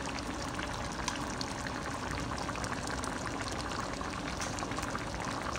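Thick tomato-sauce chicken and vegetable stew simmering in a pan: steady bubbling with many small pops.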